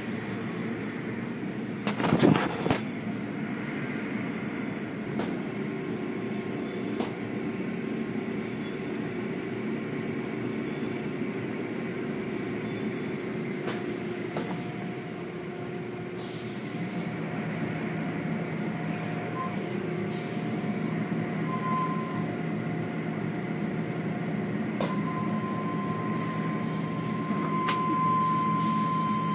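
Automatic tunnel car wash heard from inside the car: a steady mechanical hum and spray of water, with cloth wash strips brushing over the body and scattered sharp knocks, the loudest about two seconds in. A thin steady whine comes in near the end.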